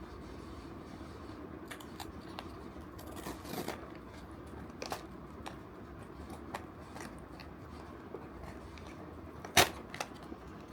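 Blind-box packaging being handled: scattered small clicks and soft rustles, with one sharp, louder click near the end.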